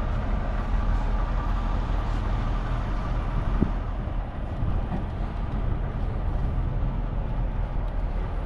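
A vehicle engine running steadily with a low rumble.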